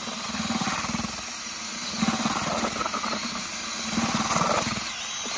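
Handheld drill spinning a paddle mixer through wet concrete in a plastic bucket, running steadily with a fast pulsing churn that swells slightly now and then as the paddle works the mix.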